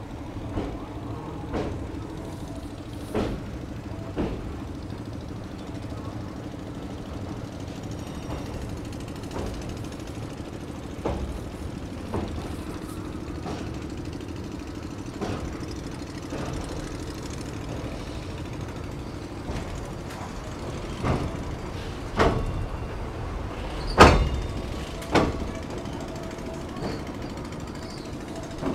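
Passenger train running over a steel rail bridge, heard from an open coach door: a steady rumble and hum, with irregular sharp clanks of the wheels over rail joints, the loudest a little past three-quarters of the way through.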